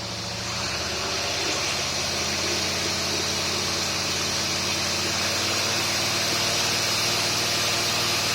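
Chevy 350 V8 running steadily on a Quadrajet carburetor, pulling against an engaged dyno load, with a strong steady hiss over the engine note. It swells slightly in the first second or so, then holds even.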